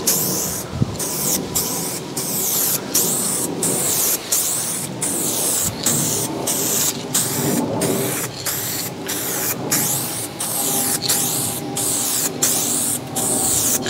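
Paint spraying onto a car panel during a coat of colour: a hiss broken by many short gaps as the spray is started and stopped in quick passes.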